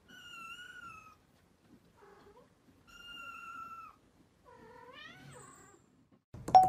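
Kitten meowing: four high, drawn-out meows, the first and third about a second long and the last bending upward. Near the end a much louder, bright ringing chime cuts in.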